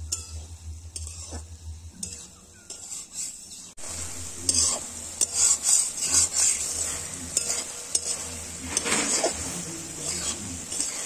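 A spoon stirring and scraping food frying in a pan, with steady sizzling. The stirring and sizzling get suddenly louder about four seconds in.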